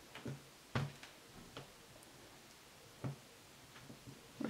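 Hand lino cutter gouging small circles into a lino sheet: a handful of short, irregular clicks and scrapes, the loudest a little under a second in.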